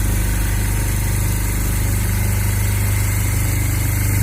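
Large-format CNC leather stitching machine running, with a steady machine hum and a fast, even rhythm.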